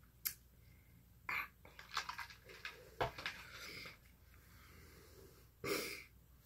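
A person eating close to the microphone: scattered mouth clicks and chewing sounds, with a loud breath a little before the end.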